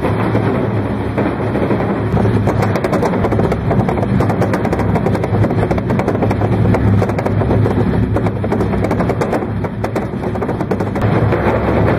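Lansmont vibration test table shaking packaged loudspeakers on wooden pallets: a steady low hum from the table's drive under a dense, irregular rattle of the pallet blocks knocking on the steel table top. This is simulated transport vibration testing of the shipping packaging.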